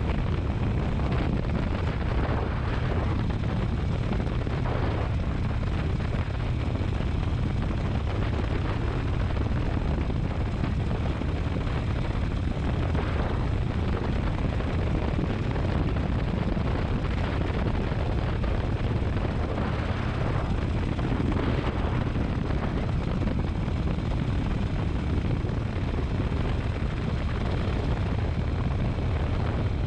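Steady wind rush and rumble on the microphone of a motorcycle ride camera, with the motorcycle's engine running underneath at a constant speed.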